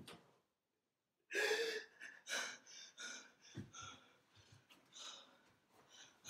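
A man's loud gasp about a second in, followed by quieter, ragged breaths, the sound of a distraught person catching his breath after crying out.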